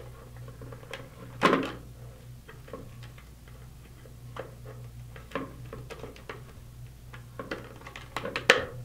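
Plastic hard-hat suspension clips being pushed and snapped into the slots of a plastic shim: scattered small clicks and rattles, one louder click about one and a half seconds in and a quick run of clicks near the end, over a faint steady hum.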